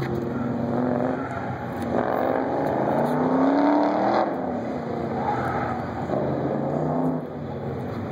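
A 1969 Chevrolet Camaro's engine revving up and down as the car works through an autocross course. The revs climb steeply to a peak about three and a half seconds in, then drop away.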